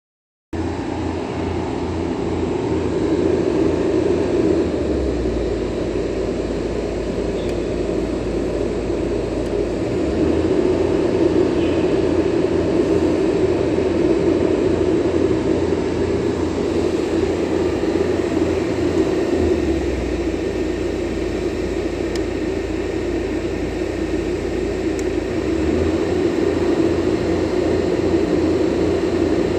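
ArcGen 300 super-silenced diesel welding generator running steadily, a continuous engine hum whose low end shifts slightly every few seconds.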